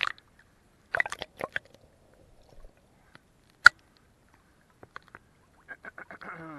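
Small lake-water splashes and drips against a waterproof camera held at the surface, heard as scattered sharp clicks, the loudest about three and a half seconds in, with a quick run of ticks near the end.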